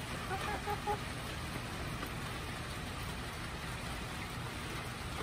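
Steady hiss of rain over a low rumble, with a quick run of four short, soft clucks from the hens feeding at the treat pans in the first second.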